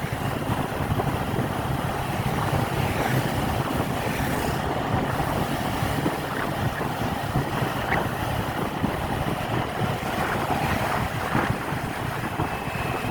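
Steady rumble of a moving bus, engine and road noise running evenly without a distinct pass-by or rev.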